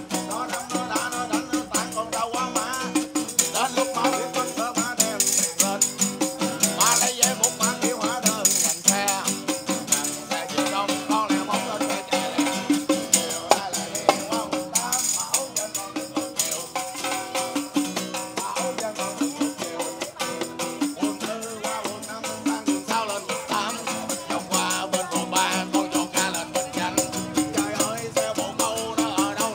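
Live acoustic guitar strummed in a steady rhythm with a hand-shaken tambourine jingling on the beat, and a man singing along.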